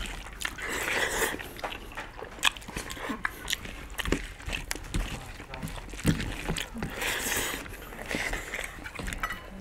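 Two people eating rice and curry with their hands: irregular wet smacks and clicks of chewing, with fingers squishing the rice on the plates, and short hissy stretches of breathing or slurping about a second in and again near the end.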